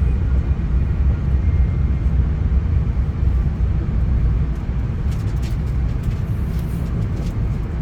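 Passenger rail car in motion as the train pulls out of a station, heard from inside the coach: a steady low rumble with a few light clicks and rattles about five seconds in.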